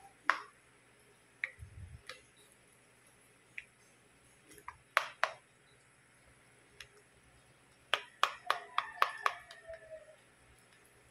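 Plastic spoon clicking against the sides of a glass baking dish while stirring a thick, creamy salad: scattered sharp taps, then a quick run of about six about two-thirds of the way through.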